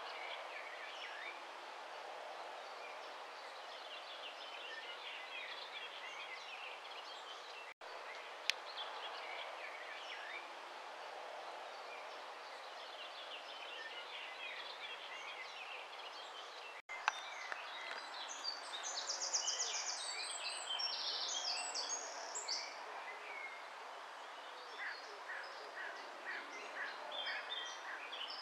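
Outdoor ambience of many small birds calling and singing over a steady background hiss, with a louder, rapid run of high chirps about two-thirds of the way through. The sound drops out for an instant twice.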